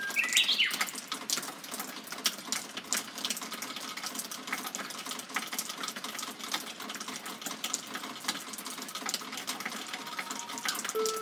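Water dripping and pattering in many irregular small ticks over a steady hiss, as the rain eases after a downpour. A brief bird call at the very start.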